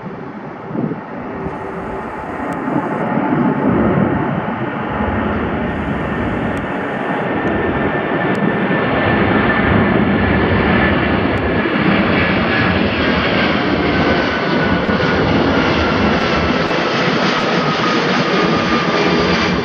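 Four-engined Airbus A340 jetliner climbing out after takeoff and passing overhead. Its engine noise builds over the first few seconds and then holds loud and steady. In the second half a whining tone slides slowly down in pitch as the aircraft goes over.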